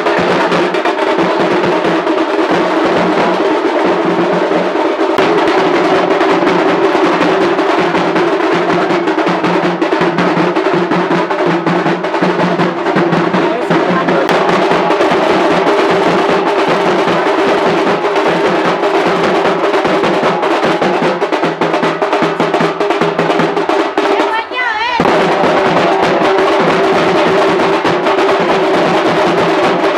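Loud music with fast, dense drumming over a sustained held tone, breaking off briefly about 25 seconds in before resuming.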